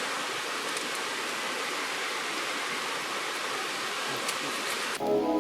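Steady rushing of flowing stream water, with a few faint clicks. About five seconds in it cuts off suddenly and background music starts.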